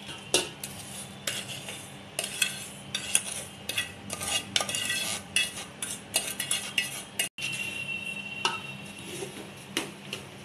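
Steel spoon scraping and clinking against a steel pot as roasted semolina and coconut are stirred into cooked jaggery, in many short irregular scrapes and clinks. The sound drops out for an instant about seven seconds in.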